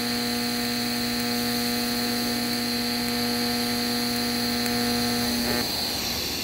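TIG welding arc buzzing steadily as an exhaust pipe is welded to its flange at 100 amps. The arc cuts off about five and a half seconds in, leaving a steady hiss.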